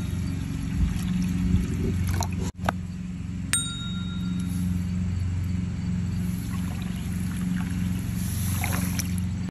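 Water poured into a glazed ceramic crock, then a cup of table salt poured into the hot water, over a steady low hum. A single bright ding rings out about three and a half seconds in.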